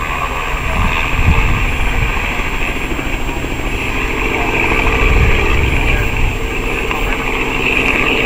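A distant aircraft engine droning steadily under a low, uneven rumbling noise.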